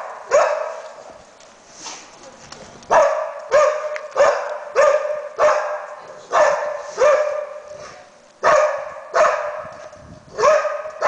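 Yellow Labrador search and rescue dog barking repeatedly, in runs of two to four barks about half a second apart with short pauses between; each bark trails off in an echo. This is the dog's bark alert, signalling a find.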